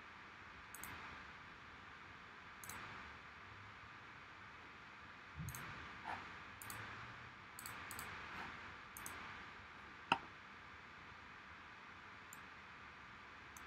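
Faint, scattered clicks from a computer mouse and keyboard in use, about ten over the stretch, with one sharper click about ten seconds in.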